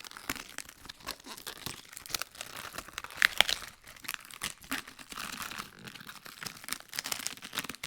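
Leaves being peeled off a head of lettuce: a run of crisp crinkling, tearing and small snaps, loudest about three seconds in.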